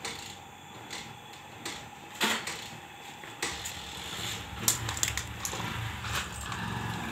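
Irregular rustling and clicks from a hand stroking cats' fur close to the microphone. A low rumble joins in about three and a half seconds in.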